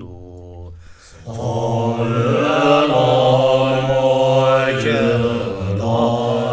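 Tibetan Buddhist monks chanting a mantra in low voices: a single voice carries it until a short break about a second in, then the whole group comes in together, louder and fuller, holding a sustained chant.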